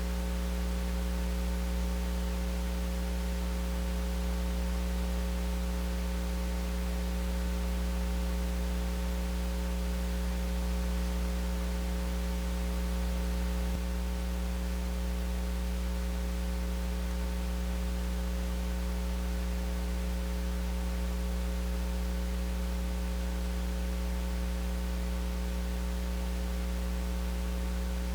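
Steady electrical mains hum with a buzz of several pitches over a constant hiss, with no speech. A faint tick about halfway through is followed by a slight drop in level.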